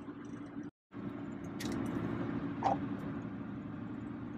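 Car cabin noise while driving: a steady low engine and road hum. It drops out completely for a moment just under a second in, then carries on, with a faint brief sound about two and a half seconds in.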